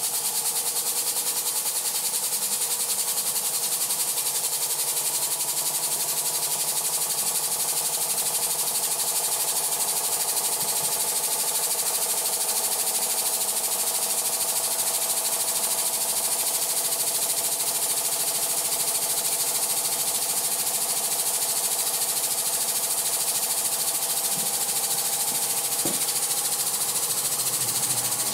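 Weeden 902 toy steam engine with an oscillating cylinder, running steadily at speed: a rapid, even beat of the cylinder and flywheel over a constant hiss of steam.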